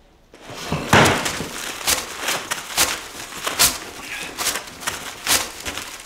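Crashing and clattering as objects are knocked over and thrown about, a run of sharp impacts starting about half a second in, the loudest about a second in.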